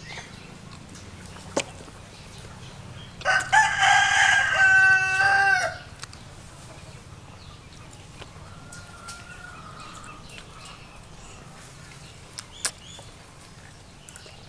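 A rooster crowing once, a loud call of about two and a half seconds starting a few seconds in. A couple of short sharp clicks come before and after it.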